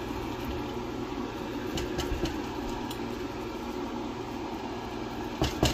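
Steady low mechanical hum, with a couple of sharp knocks near the end.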